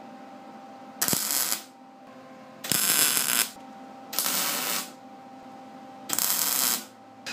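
Wire-feed (MIG-type) welder tack-welding steel flat bar onto steel drawer slides: four short bursts of arc noise, each under a second, with pauses between them. A faint steady hum runs underneath.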